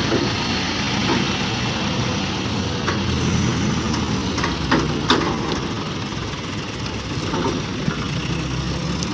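ACE hydra crane's diesel engine running steadily as it hoists an overturned truck tractor back onto its wheels, with a few short knocks partway through.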